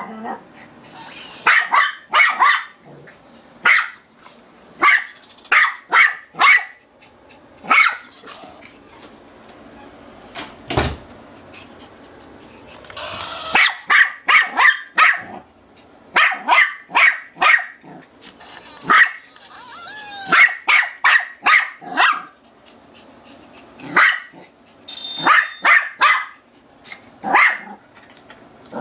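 Shih Tzu barking over and over in quick clusters of two to four high, sharp barks with short pauses between, at a toy mouse she is afraid to grab. There is a single thump about halfway through.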